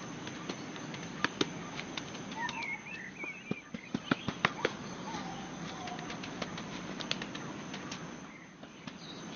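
Irregular sharp clicks and snaps, a few much louder than the rest, with birds calling faintly in the forest and a steady high insect-like tone.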